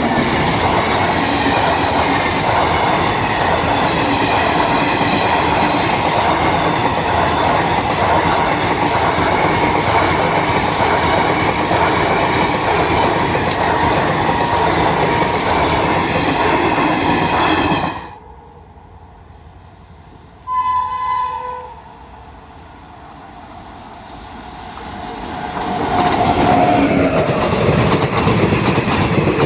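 A train passing close by at speed, wheels clattering over the rail joints, until the sound drops away sharply about two-thirds of the way through. A short horn blast of about a second follows, and then another train rises in loudness and passes close by near the end.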